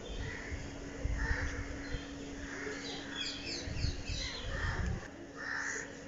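Crows cawing repeatedly, harsh calls about a second apart. In the middle comes a quick run of short, high chirps from another bird, and low rumbles hit the microphone now and then.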